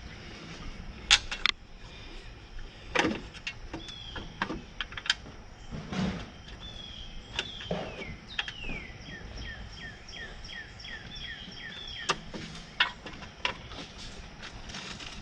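Scattered metal clinks and knocks of hand tools and parts during reassembly of a bulldozer. In the middle, a run of short falling chirps repeats about three times a second for several seconds.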